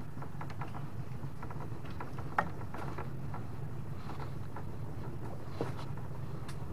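Small boat's motor running steadily at low speed, with scattered light clicks and a sharper knock about two and a half seconds in.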